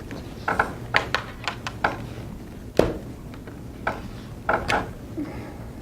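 A string of irregular light taps and knocks, about ten in all, with the sharpest about three seconds in.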